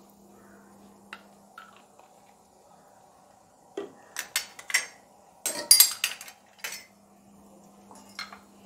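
Metal spoon clinking against a cooking pot and utensils, a cluster of sharp clinks in the middle, over a faint steady low hum.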